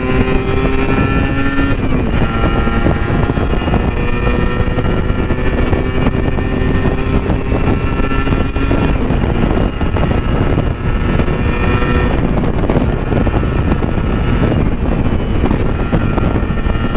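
Sport motorcycle engine running steadily while under way, over a loud rush of wind on the rider's camera microphone. The engine note holds steady for most of the first nine seconds, then becomes less distinct in the wind noise.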